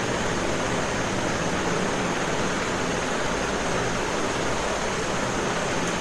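Steady, even hiss like white noise, with no change in level or pitch.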